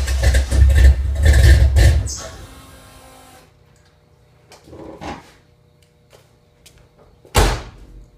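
A vehicle engine turning over with a loud low rumble, which fades out and stops about two to three seconds in. A single sharp thump comes near the end.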